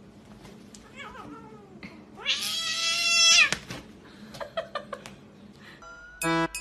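Domestic cat yowling: a couple of short falling cries, then one loud drawn-out yowl of about a second that rises and falls, aimed at another cat facing it. Plucked music notes start near the end.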